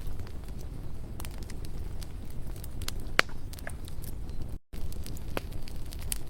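Campfire burning, with a steady low rumble and irregular sharp crackles and pops from the wood, one louder pop about halfway through. The sound cuts out for a split second about two-thirds of the way in.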